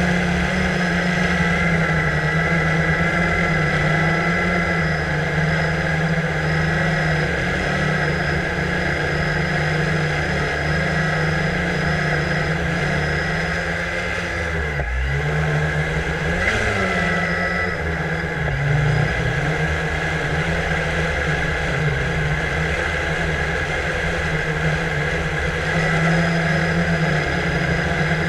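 Quadcopter drone's electric motors and propellers whirring steadily, as heard by its onboard camera in flight. About halfway through the pitch dips briefly and then rises again as the throttle changes.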